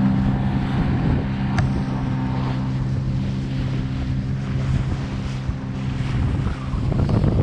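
A small wooden boat's motor running steadily under way, with wind buffeting the microphone.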